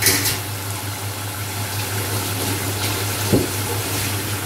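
Chicken keema gravy bubbling as it simmers in a pot on the stove, over a steady low hum. There is a short knock a little past three seconds in.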